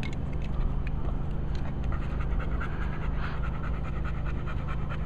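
A dog panting steadily, over a steady low hum.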